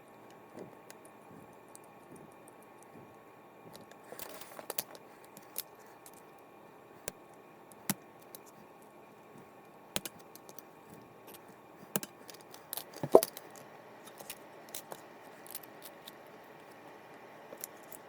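Small metal parts and tools being handled while working on a fishing reel: scattered light clicks and knocks, with a louder knock about thirteen seconds in.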